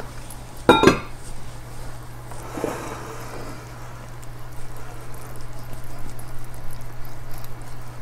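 A glass bowl clinks once about a second in, then a silicone whisk stirs thick cake batter in a glass mixing bowl, a soft, irregular scraping and squelching that gets busier in the second half.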